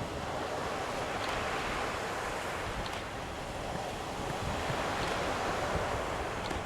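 Waves washing onto a beach in strong wind, with gusts buffeting the microphone; the surf swells twice, early and again about five seconds in.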